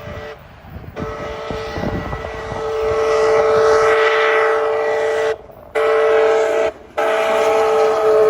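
Locomotive air horn sounding a steady chord of several notes, starting about a second in and breaking off briefly twice.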